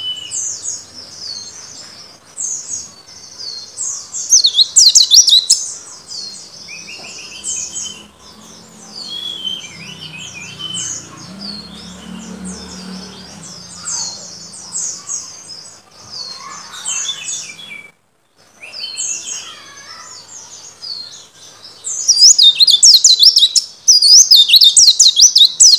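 Caged white-eye (pleci) singing: high, quick chirping phrases, breaking into loud, rapid twittering about four seconds in and again over the last few seconds.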